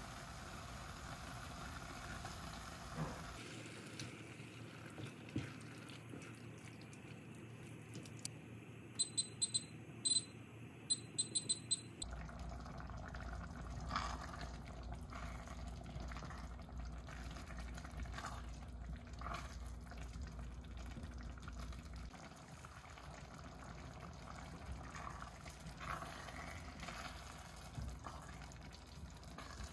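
Kitchen work sounds: water running and pouring, with light clicks and clinks. A run of about ten short, high electronic beeps in two quick groups comes about a third of the way in.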